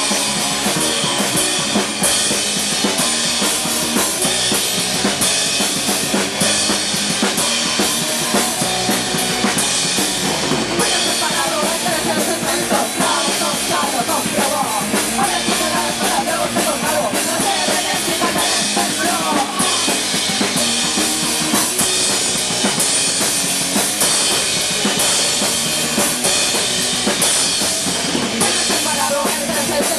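Horror punk band playing at a rehearsal, with the drum kit loud in front: steady bass drum and snare hits under the rest of the band.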